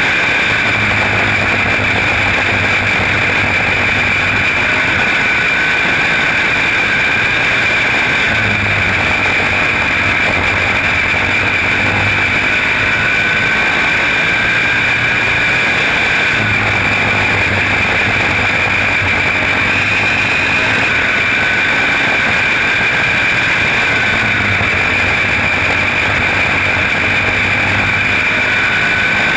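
Small single-seat race car engine running hard at speed on an oval, heard on board over wind rush. Its note is steady and dips slightly then recovers about every eight seconds.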